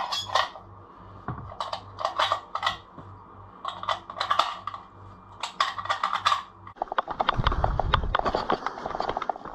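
.338 Lapua Magnum brass cartridges clinking against each other and the case as they are lifted out of a foam-lined hard case, in several short clusters of small metallic clicks. About seven seconds in, this gives way to footsteps crunching on a gravel track.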